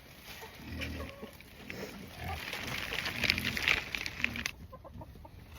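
Pigs grunting in short, low grunts several times. A patch of crackling, rustling noise runs through the middle and cuts off suddenly about four and a half seconds in.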